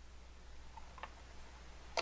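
Faint ticks and clicks from a screwdriver turning the small volume knob on the back of a wireless driveway-alarm chime receiver, with a sharper click near the end.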